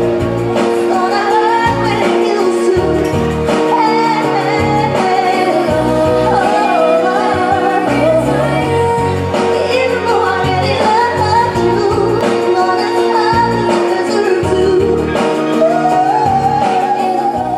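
A woman singing a pop song live into a microphone, over instrumental accompaniment with sustained chords and bass notes.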